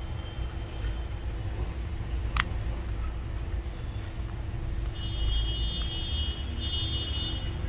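Steel tweezers prying a laptop key's plastic scissor clamp off the keyboard, with one sharp click about two and a half seconds in, over a steady low background rumble. A high steady tone sounds for about two and a half seconds near the end.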